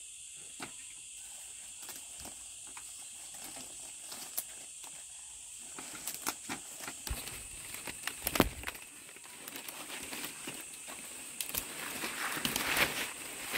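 Dry palm leaves rustling and crackling as they are handled and woven into a thatch panel by hand, with irregular sharp snaps and taps that grow busier in the second half and one louder snap near the middle. A steady high-pitched whine sits in the background throughout.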